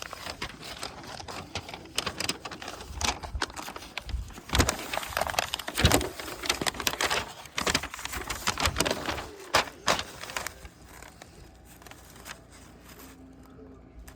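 Hard plastic prop parts being handled and fitted together by hand: irregular clicks, knocks and rustling. It goes quieter about ten seconds in.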